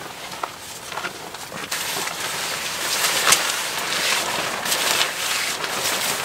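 A large tarp rustling and flapping in gusty wind as it is handled, with the wind rushing, in a run of irregular crackles.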